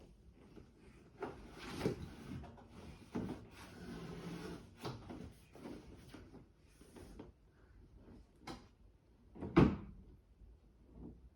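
Scattered knocks and light thuds of objects bumping, with rustling between them and one much louder sharp thud about two-thirds of the way through.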